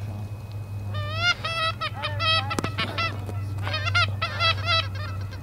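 Hand-blown Canada goose calls: quick runs of breaking honks and clucks, a longer run starting about a second in and a shorter one near the end. A sharp click falls between them, over a steady low hum.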